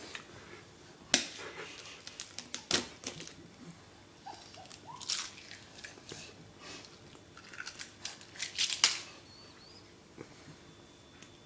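Scattered sharp clicks and crackly rustling as a small child handles and tears the peel of a small orange, with a couple of short rising squeaks about four seconds in.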